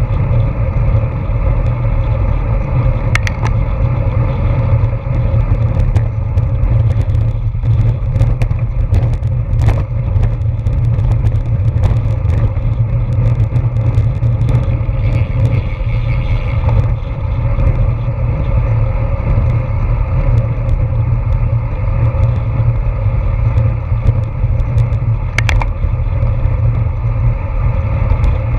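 Wind buffeting the microphone of an action camera on a road bike at racing speed, a steady deep rumble, mixed with tyre noise on asphalt. Scattered sharp clicks and knocks come through it.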